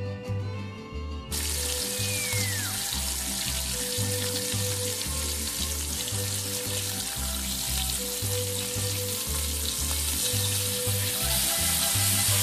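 Diced onion frying in hot oil in a skillet: a steady, dense sizzle that starts suddenly about a second in and grows a little louder near the end. Background music with a steady bass line plays underneath.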